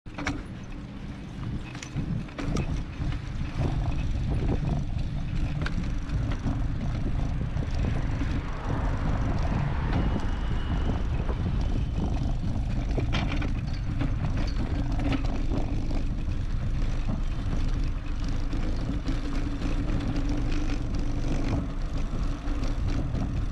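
Steady low rumble of wind on an action-camera microphone mixed with road traffic, with scattered clicks; a little quieter for the first few seconds.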